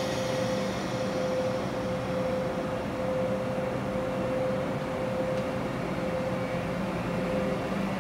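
ÖBB class 1144 and 1116 Taurus electric locomotives pulling slowly away: a steady hum of cooling blowers and traction equipment, with one held whining tone over it.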